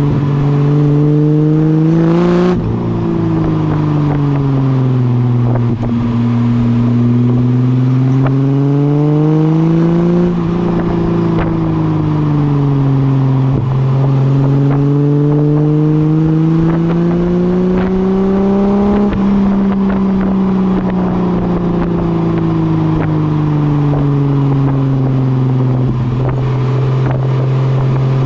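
Ford AU Falcon's 4.0-litre inline-six through Pacemaker 4480 extractors, a high-flow cat and a 2.5-inch catback exhaust, its note climbing and falling as the revs rise and drop several times. The revs fall sharply with a click about two seconds in.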